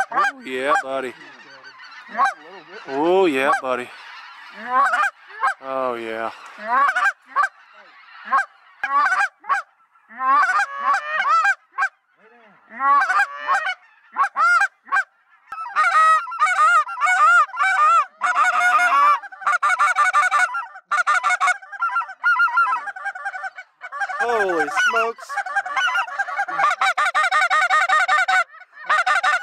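A big flock of geese calling overhead, many honks and clucks overlapping, growing into a dense, continuous chatter about halfway through.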